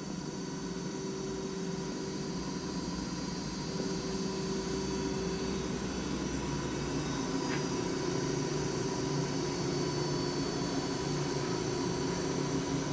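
Daewoo DMV-3016 CNC vertical machining center's spindle running at 2,000 RPM: a steady mechanical hum with several steady high tones. The low part of the hum shifts about seven seconds in.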